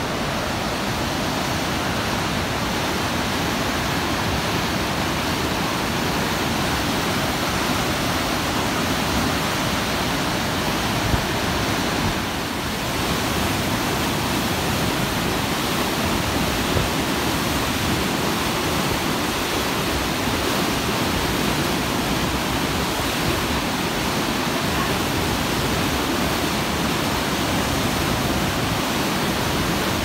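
Steady rush of heavy whitewater forced through a narrow rock gorge: the Waikato River at Huka Falls.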